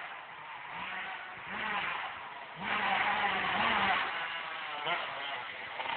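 Yamaha YZ125 two-stroke dirt bike engine revving up and down as the bike is ridden across a field, getting louder about two and a half seconds in.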